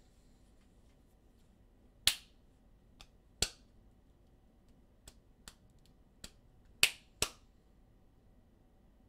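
About eight sharp, irregularly spaced clicks over some five seconds: a strong one about two seconds in, another a second and a half later, fainter ones in between, and a loud pair close together near the end.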